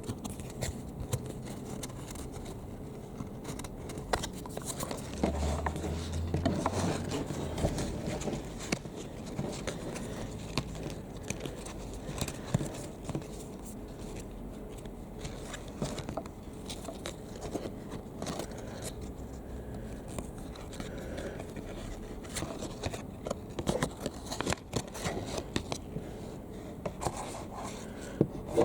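Trading cards and their box and wrapping being handled: scattered light scrapes, clicks and crinkles.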